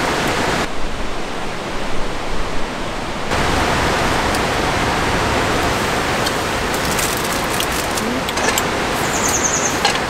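Mountain stream running high after a night of heavy rain, a steady rush of water. A few light clicks and taps of camp utensils come in over it in the last few seconds.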